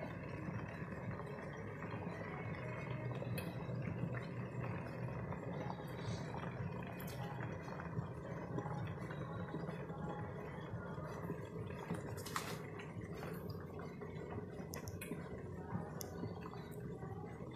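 Lidded pots of mushrooms boiling on a stove: a steady bubbling with scattered small clicks and pops, and one sharper click about twelve seconds in.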